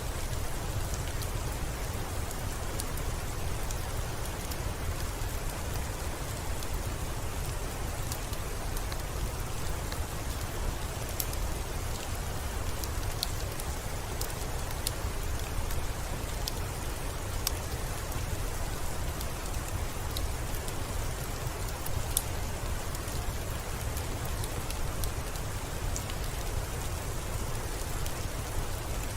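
Steady rain falling, a constant hiss with a low rumble underneath, mixed with scattered sharp crackles and pops from a wood fire in a fireplace, one louder pop about 22 seconds in.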